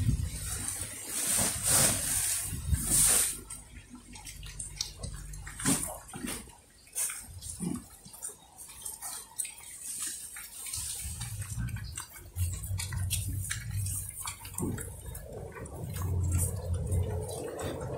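Native pigs chewing and crunching a pile of fresh greens and leaves, with many short wet crackles. In the first few seconds a plastic feed sack full of leaves rustles as it is emptied.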